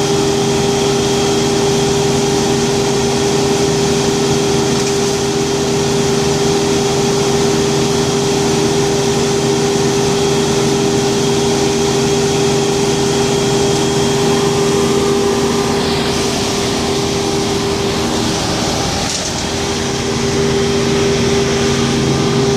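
An engine running steadily at a constant speed. It eases off briefly about nineteen seconds in, then picks back up.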